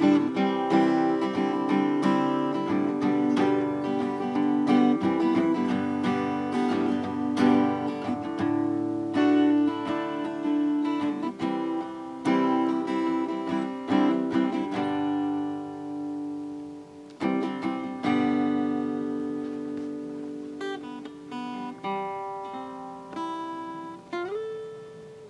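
Acoustic guitar music, plucked and strummed notes ringing out. The playing thins out and grows steadily quieter, with one note sliding up in pitch near the end.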